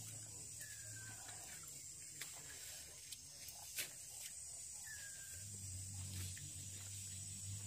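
Clam shells clicking and clacking now and then as hands pick through them, with one sharper clack about halfway through. Underneath runs a steady high insect drone and a low hum, and two short falling chirps are heard.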